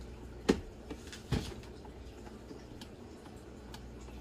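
The lid of a capsule coffee machine being unlocked and opened by hand: two sharp clicks less than a second apart, the first the louder, then a few faint ticks.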